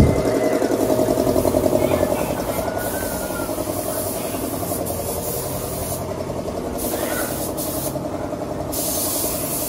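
A machine running steadily with a fast, even pulsing beat.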